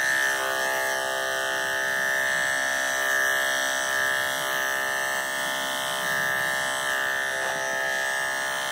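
Andis electric clippers running with a steady buzz, clipping a miniature schnauzer's coat short.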